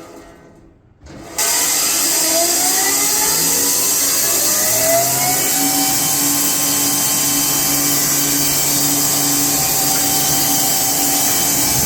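Band sawmill running: a steady loud rushing hiss with a low hum, cutting in suddenly about a second in, with a whine that rises in pitch over the following few seconds before levelling off.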